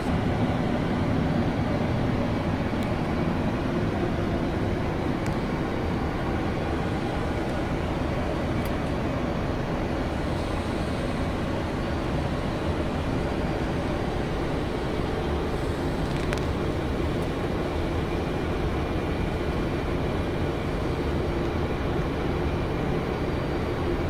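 Steady rushing airflow and engine noise inside an Airbus A330-200's flight deck, descending on approach, with a few faint ticks.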